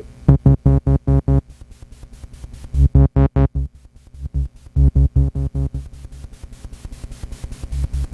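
Korg MS-20 Mini analog synthesizer playing short, low staccato notes in quick runs of several, with a faint steady hum under and between the notes. The owner calls this background a horrible noise that persists whatever the settings.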